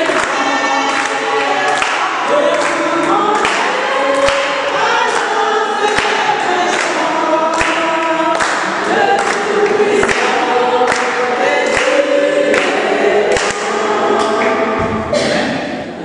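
Congregation singing a hymn together, many voices at once, with a regular beat of sharp strikes.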